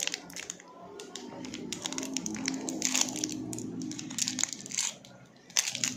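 Plastic wrapper of a Yupi gummy candy crinkling as fingers work it open, in a run of short sharp crackles, with a louder cluster near the end.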